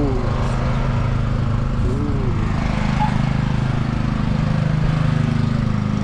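An engine idling steadily: an even, low hum with a fast pulse underneath.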